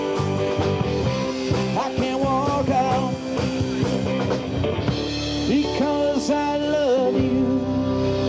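Live rock band playing: drum kit and electric guitars, with a man singing lead into a microphone.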